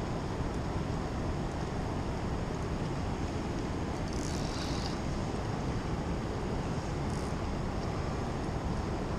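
Steady rushing, rumbling outdoor noise from a fast-flowing, swollen river and wind, with a brief higher hiss about four seconds in.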